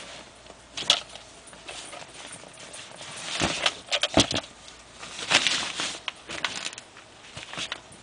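WowWee robotic crocodile toy working: irregular clicks and knocks from its mechanism, mixed with a few short hissing rasps. The sharpest snaps come about a second in, and again around three and a half and four seconds in.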